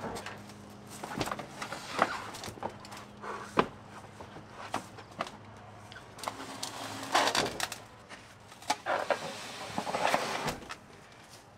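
Knocks, scrapes and fabric rustling as a large foam-and-plywood floor panel draped in a cloth is lowered flat onto a van frame and shifted into place, with a faint low hum underneath for the first few seconds.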